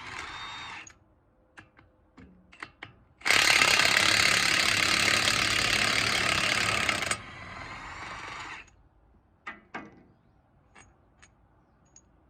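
Cordless brushless impact wrench hammering on a chipper knife bolt for about four seconds in the middle, then spinning more quietly for a moment and stopping. Short sharp metallic clicks of the socket and bolts come before and after.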